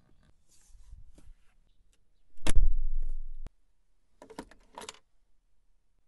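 Mercedes-AMG G-Class door shutting with one heavy, deep thud about two and a half seconds in, among smaller clicks. Near the end comes a quick run of metallic clicks as the key fob is handled at the centre console.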